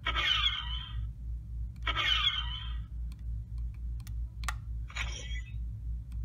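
Electronic sound effects played by a Star Wars ski speeder toy's sound chip through its small speaker: three warbling bursts, the first two about a second each and the third shorter, with a few light plastic clicks of the toy being handled between them.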